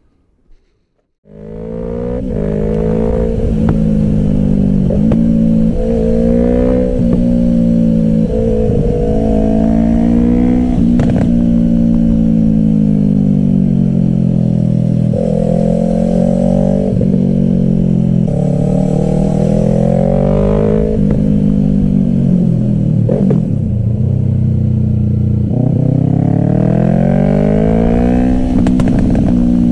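Yamaha YZF-R3's parallel-twin engine through an aftermarket M4 exhaust, heard onboard while riding. The engine note cuts in abruptly about a second in, then the revs climb and drop again and again as the bike accelerates and shifts through the gears.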